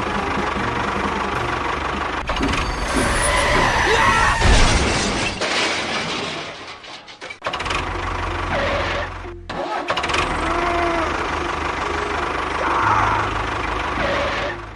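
An engine running with a steady low drone that breaks off abruptly several times, with a dip about halfway through.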